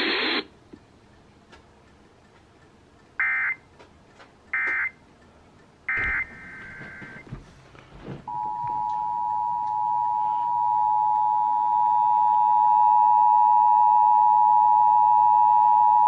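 Emergency Alert System signal from a portable radio's speaker, announcing a tornado warning. Three short data bursts of the SAME header come about a second and a half apart. After them the steady two-tone attention signal starts and grows louder over a few seconds as the volume is turned up.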